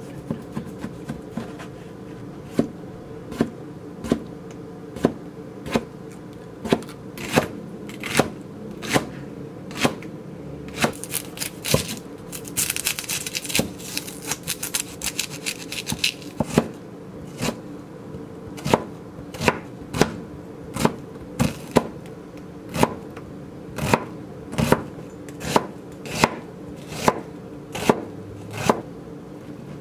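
Chef's knife cutting on a plastic cutting board, slicing through pickled radish and then onion: a steady series of sharp knocks of the blade on the board, about one to two a second, with a quicker run of cuts near the middle.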